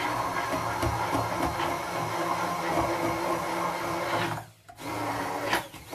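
Small electric blender's motor running steadily as it purees a thick walnut sauce of nuts, bread, milk and olive oil. It cuts out for a moment a little past four seconds in, then runs again briefly.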